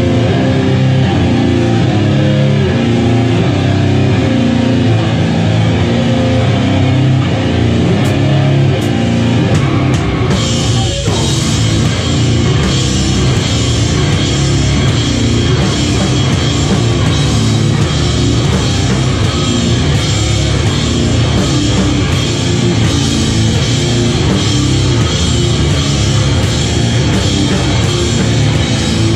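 Live heavy metal band playing loud: distorted electric guitar riffing over the drum kit. About ten seconds in, the cymbals come in hard and ring on to the end.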